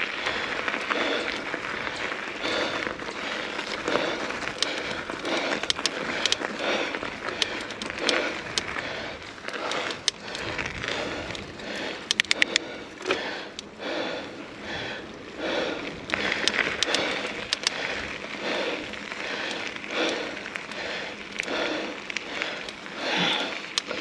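Mountain bike rolling over a dirt trail: a continuous crunch and rattle of tyres and bike that swells and fades unevenly, with sharp clicks now and then and a quick run of them about halfway.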